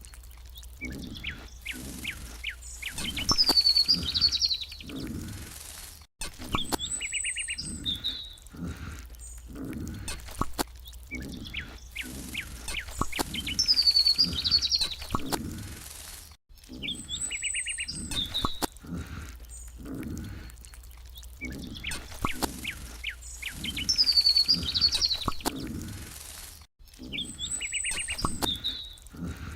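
Birds chirping, with a high whistle that dips and rises, over many short clicks and knocks. The same stretch of about ten seconds repeats three times, each joined by a sudden cut.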